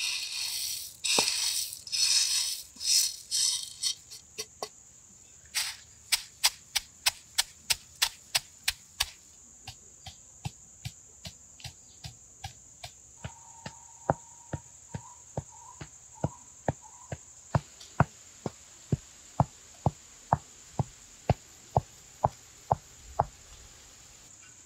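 Stone pestle crushing whole black peppercorns in a stone mortar: a few seconds of grinding and crunching, then sharp, steady knocks, about four a second at first and slowing to two or three. A constant high cricket trill sounds underneath.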